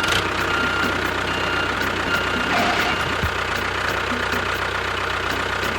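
An engine running steadily at idle, with a fast, even low chugging.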